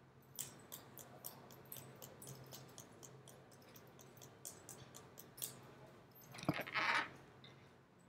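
Faint, irregular clicking of computer keys being typed, several strokes a second, then a short louder hiss-like noise near the end.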